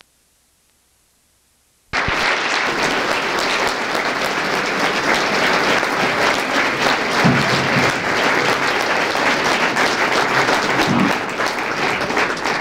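Near silence, then an audience applauding: the clapping cuts in abruptly about two seconds in, holds steady, and dies down near the end.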